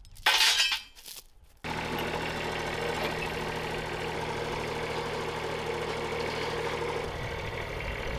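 A brief clatter near the start, then a Kubota compact tractor's diesel engine running steadily as its front loader drags a steel pipe on a chain.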